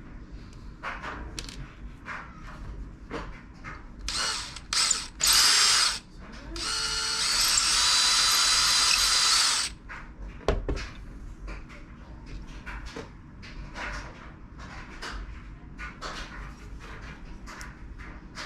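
Power drill boring the tip holes in diamond painting pen blanks: two short bursts, then a steady run of about three seconds that cuts off suddenly. Small clicks and handling knocks from the work are heard before and after.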